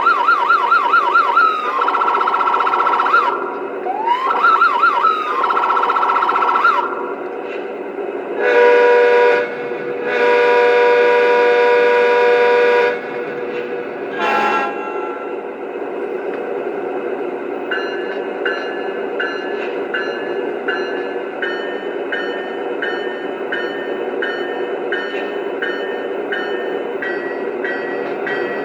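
Lionel ES44 model diesel locomotive's onboard sound system over a steady engine rumble. It gives a warbling, siren-like tone twice, then a short horn blast and a longer one of about three seconds, and a brief toot. After that the bell rings steadily, about twice a second.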